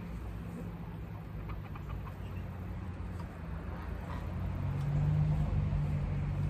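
Soft calls from backyard poultry over a low steady drone that grows louder about five seconds in.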